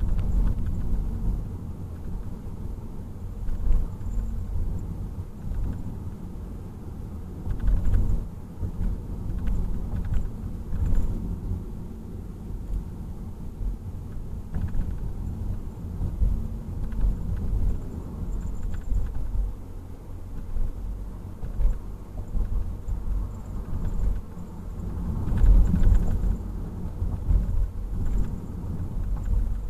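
Mazda3 being driven, heard from inside the cabin: a steady low rumble of road and drivetrain noise that swells and eases, with a few brief knocks scattered through it.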